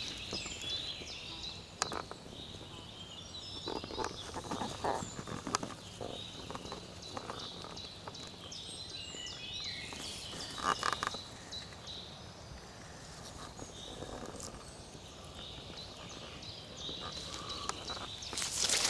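Woodland ambience: small birds chirping and twittering throughout, with bouts of rustling and light knocks from movement in the undergrowth, loudest about four seconds in, about ten seconds in and near the end.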